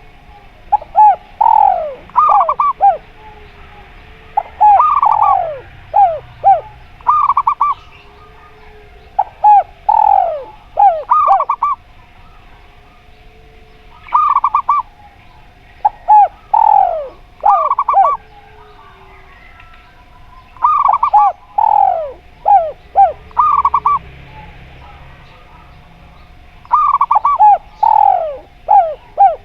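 Zebra dove and spotted dove cooing. Loud phrases of several quick, falling coo notes come every four to six seconds, with fainter, lower coos in between.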